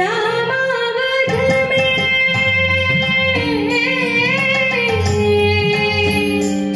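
A young woman singing a devotional song into a microphone, her melody bending and gliding with ornaments, over held electronic organ notes. Light tabla plays underneath from about a second in.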